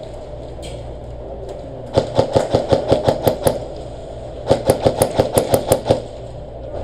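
Airsoft gun firing two rapid strings of shots, about seven a second, each string lasting about a second and a half with a one-second pause between them, over a steady background hum.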